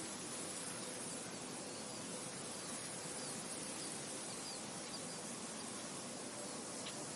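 Wind blowing through a wheat field: a steady, even rustling hiss of the stalks and heads, with a few faint high chirps in the middle.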